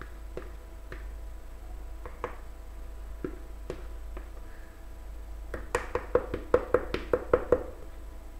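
Blue plastic spatula scraping thick cake batter out of a plastic mixing bowl into a pot, with a few scattered light taps, then a quick run of about a dozen knocks, roughly six a second, in the second half as the spatula knocks against the bowl.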